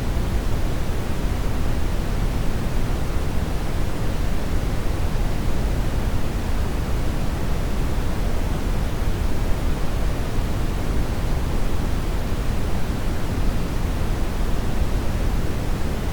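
Steady, unbroken synthetic noise, an even hiss-and-rumble with more weight in the low end than in the treble.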